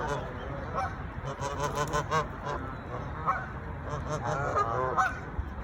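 A flock of waterfowl giving short honking calls, many in quick succession and overlapping, over a low steady rumble of wind or background noise.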